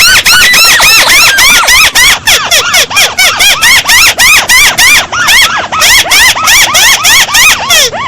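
Paddy-field crake (burung tikusan sawah) calling: a fast, unbroken run of loud squealing notes, each rising then falling in pitch, about five a second.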